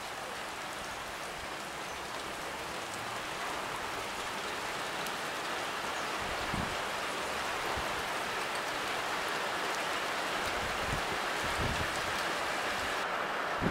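Steady hiss of falling rain, growing slightly louder as it goes on.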